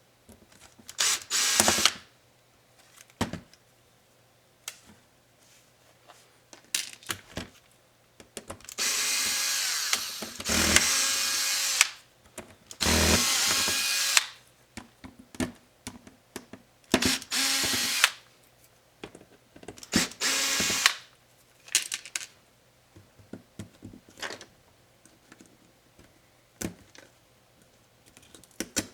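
Small electric screwdriver running in short bursts of one to two seconds, about six times, backing out small laptop screws, with light clicks and taps of the screws and plastic parts being handled in between.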